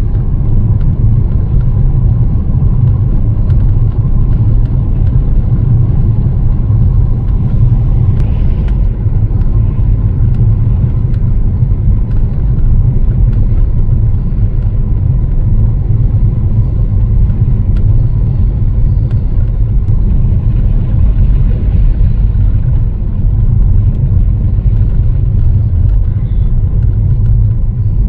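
A car driving, with a steady loud low rumble of engine and road noise.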